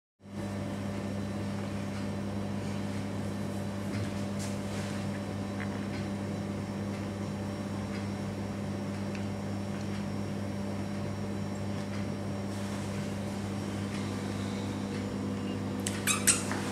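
Steady low electrical hum over a background hiss. A few brief sharp clicks come near the end.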